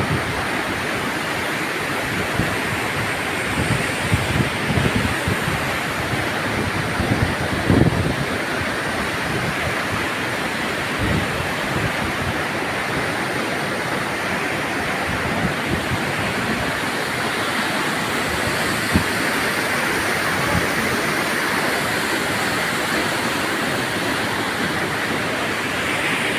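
Plunge waterfall, its water dropping vertically and crashing below in a steady, unbroken rush. A few brief low thumps stand out between about four and eight seconds in.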